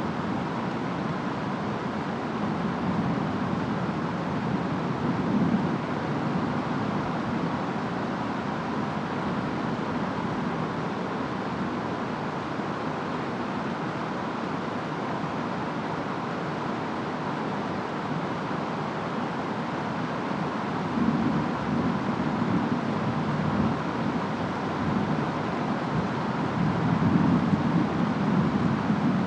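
Steady rain and wind noise from a storm, with a low rumble swelling up twice in the latter part, typical of distant thunder.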